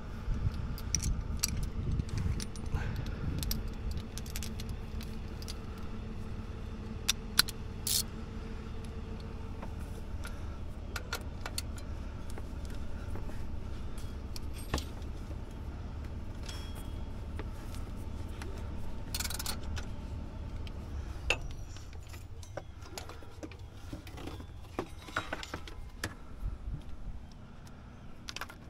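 Metal hand tools clinking and knocking against the engine while the serpentine belt is worked off a GM LS-style V8, with scattered sharp clicks over a low rumble that dies away about two thirds of the way through.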